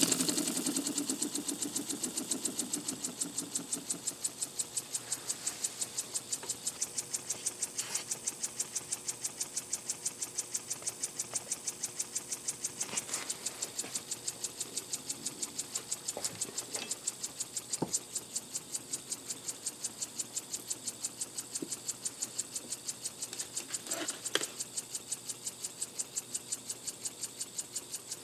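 Small model oscillating steam engine running on compressed air, exhausting in a quick, even rhythm of puffs. It fades to a softer steady beat over the first few seconds, and a few light knocks sound over it.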